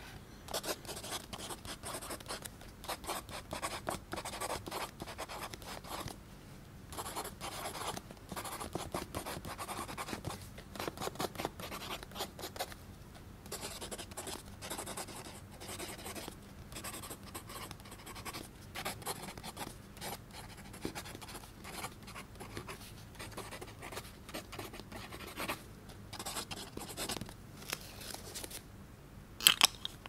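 Extra-fine steel fountain pen nib (TWSBI Diamond 580) scratching across notebook paper in short, irregular strokes, with brief pauses between words. A sharp click comes just before the end.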